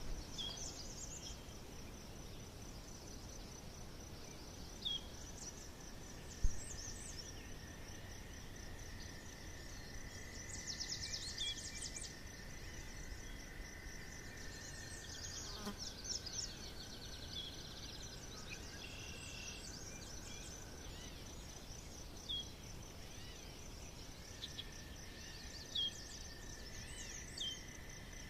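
Forest ambience: a steady, high, pulsing insect trill, with birds giving short high chirps every few seconds and a couple of longer song phrases.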